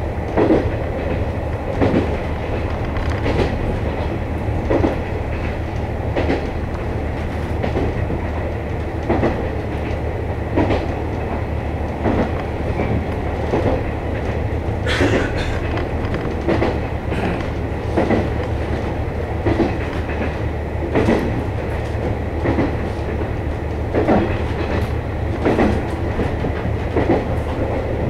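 KiHa 48 diesel railcar running along the line: a steady low engine and running drone, with the wheels clicking over rail joints about every second and a half. A brief hiss comes about halfway through.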